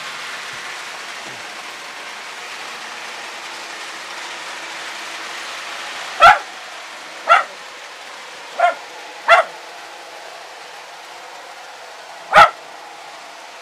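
A dog barking five short single barks in the second half, over the steady running noise of Lionel model trains on the layout.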